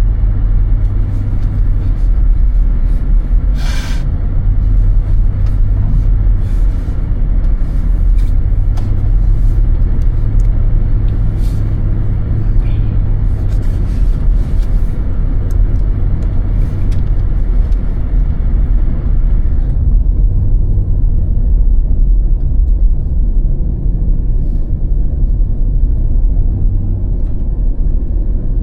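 Car driving on a snowy road: a steady low rumble of engine and tyres, with a few faint clicks and a short hiss about four seconds in. The higher hiss fades out about two-thirds of the way through.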